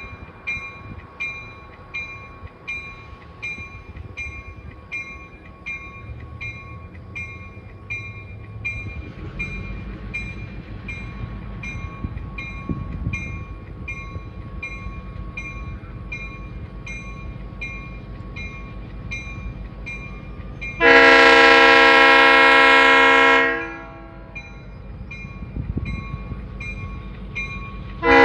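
A grade-crossing bell ringing steadily at about one and a half strokes a second, under the low rumble of an approaching diesel locomotive. About three-quarters in, the locomotive's air horn sounds one long blast of about two and a half seconds, and a second blast begins at the very end.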